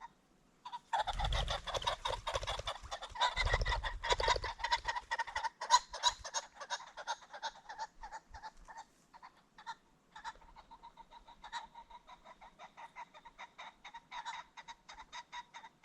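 Ring-necked pheasant giving a long, rapid series of clucking calls. The calls are loudest in the first few seconds, with a low fluttering underneath, then go on more softly.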